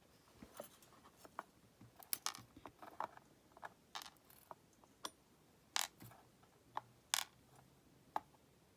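Small metal lock parts clicking and tapping as the pin-tumbler core of a Lockwood oval cylinder and its pins are handled: a dozen or so scattered light clicks, two sharper ones near the end.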